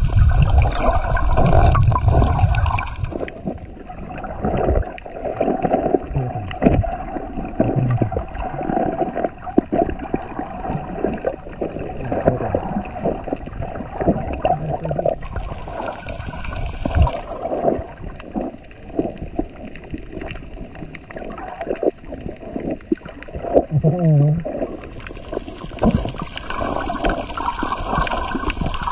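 Muffled underwater water noise picked up by a camera held below the surface while snorkeling: water sloshing and bubbling, with irregular clicks and gurgles.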